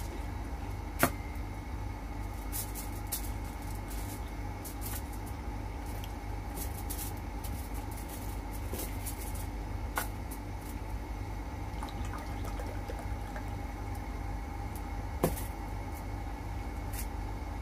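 Water poured from a bottle into a drinking glass, with a patter of small clicks and splashes, over a steady low hum. Three sharp knocks on the table stand out: about a second in, midway, and near the end.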